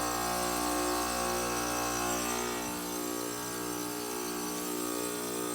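2016 Ruud heat pump outdoor unit running through a defrost cycle, its compressor giving a steady multi-tone hum.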